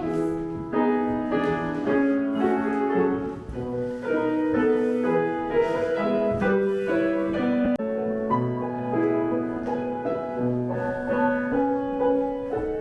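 A piano playing a flowing melody, one note after another over lower chords.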